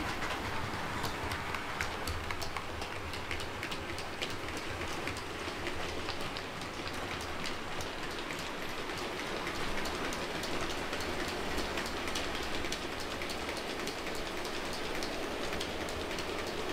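OO gauge model freight train running along the track: a steady rolling rush of wheels with many rapid light clicks as the wagons pass over the rail joints.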